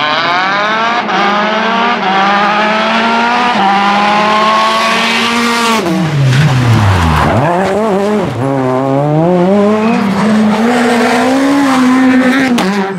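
Rally cars' engines at full throttle: the note climbs steadily for about six seconds, drops sharply, then rises and falls repeatedly as the revs change through gear shifts and braking.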